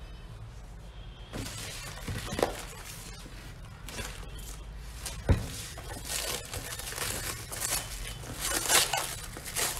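Plastic cling film crinkling and crackling as hands pull and handle it, with two sharp knocks, one about two and a half seconds in and one about five seconds in.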